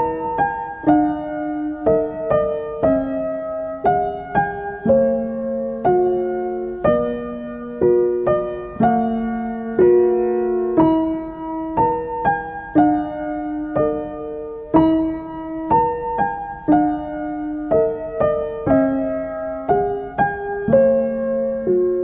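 Background piano music: a gentle tune of struck notes that fade away, with a new chord roughly every two seconds.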